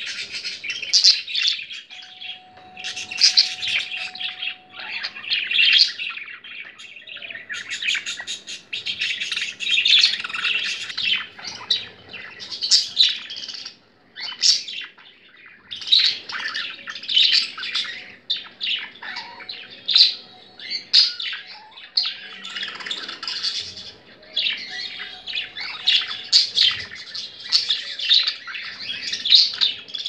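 Budgerigars chattering: a dense, nearly unbroken stream of quick, high chirps and warbles.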